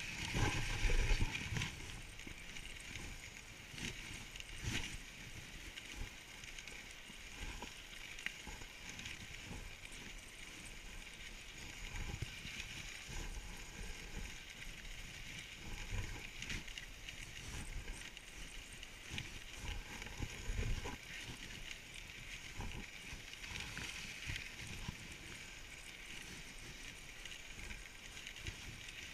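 Dog sled gliding over packed snow: a steady hiss from the runners, with irregular knocks and bumps as the sled rides over the trail.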